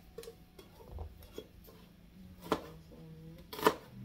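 A large cleaver-style knife knocking on a plastic cutting board as it chops garlic: a few sharp chops, the loudest near the end.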